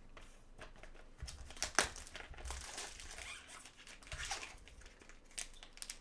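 Trading cards and their plastic wrapping being handled: irregular crinkling and rustling with several sharp clicks, the loudest about two seconds in.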